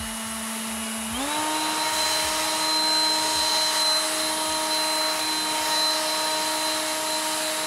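Worx WG547E 20V cordless leaf blower running, switched up from its first speed to its second about a second in: the motor's steady whine steps up in pitch, the rush of air gets louder, and it then holds steady at the higher speed.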